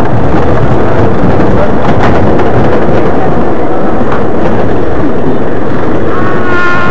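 Nickelodeon Streak wooden roller coaster train rolling along the track toward the chain lift: a loud, steady rumble and rattle. About six seconds in, a steady high tone in two pitches starts.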